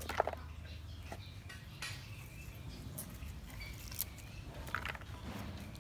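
Light clicks and taps of hands handling sliced vegetable pieces: dropping them into a plastic bowl and gathering them on a wooden cutting board. The loudest tap comes just after the start. Faint short high chirps sound in the background.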